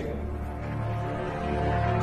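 Background film-score music: low, held tones that swell slightly toward the end.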